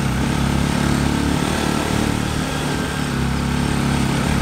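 Motorcycle engine running steadily while being ridden.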